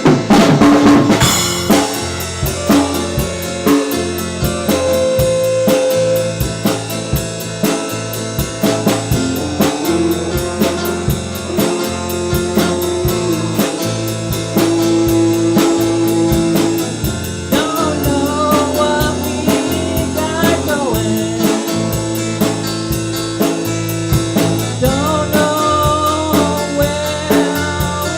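A band playing a blues-rock song on drum kit and guitars, with a loud hit at the very start. A lead line of held and bending notes runs over the steady drums, busier in the second half.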